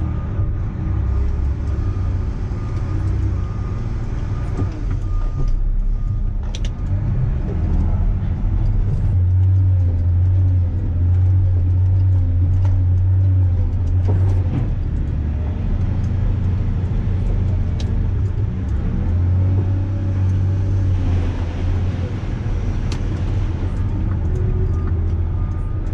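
Volvo L250F wheel loader's diesel engine heard from inside the cab, a steady low drone that swells louder twice, for a few seconds each, as the engine works harder.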